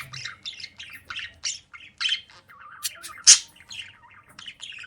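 Budgerigar chattering: a quick, uneven run of short, sharp chirps and squawks, the loudest a little over three seconds in.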